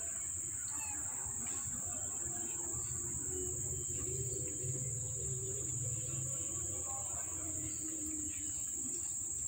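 Steady, high-pitched insect drone of crickets or cicadas, unbroken throughout, with faint low wavering sounds beneath it.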